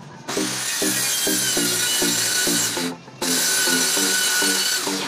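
Corded circular saw cutting through a plywood sheet: a loud, steady high whine with the blade rasping through the wood. It breaks off briefly about three seconds in, runs again, and its whine falls in pitch as it winds down near the end.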